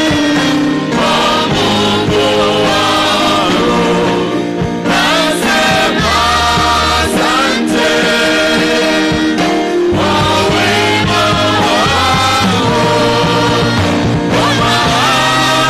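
Gospel music with singing over a steady bass line.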